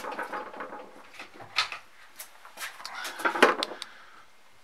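Light scraping and several sharp metallic clicks as a small screwdriver works at the brass fitting of a fog-machine pump, the clicks bunched around the middle.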